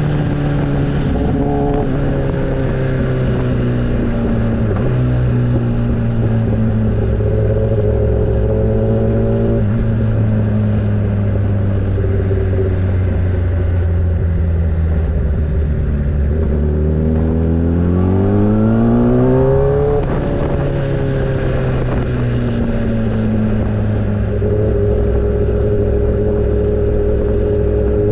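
Motorcycle engine running under way, its pitch holding steady for long stretches, then climbing steeply as it revs up about two-thirds of the way in before falling suddenly.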